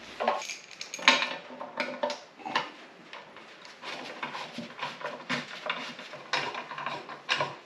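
Light metallic clinks and scrapes as bolts are handled and threaded by hand into the oil pan of an LS1 V8. The clicks come irregularly, the sharpest about a second in.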